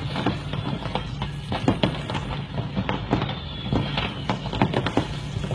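Fireworks from the burning stock of a firework factory going off in irregular sharp pops and cracks, several a second, over a steady low hum.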